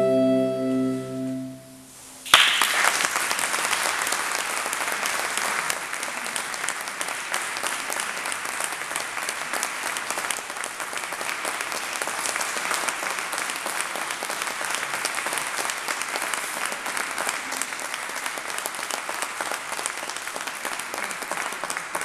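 A saxophone quartet of soprano, alto, tenor and baritone saxophones holds a final chord that cuts off about a second and a half in. After a short pause the audience breaks into applause, which starts suddenly and goes on steadily.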